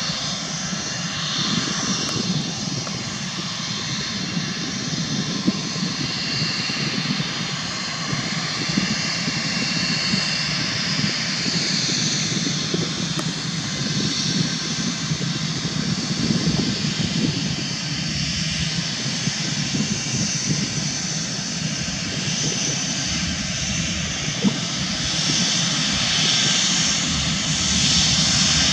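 Airbus A320-family airliner's twin jet engines running as it taxis along the runway: a steady rumble with a high whine on top, growing a little louder in the last few seconds.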